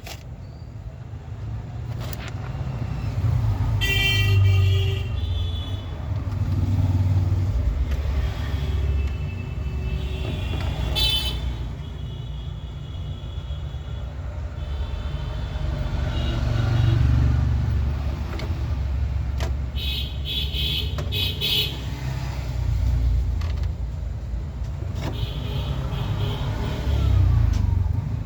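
Steady low rumble of road traffic, with vehicle horns honking several times.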